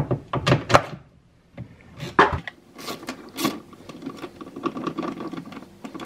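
Metal hand tool clicking, knocking and scraping against the inner panel of a Tesla Model S door while a fastener is worked loose and parts are drawn out: a few sharp clicks, then a stretch of quieter rattling and rubbing.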